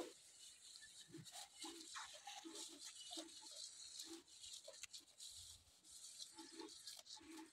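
Faint, irregular crunching and rustling of a goat pulling at and chewing fresh green fodder, with short soft clicks about twice a second.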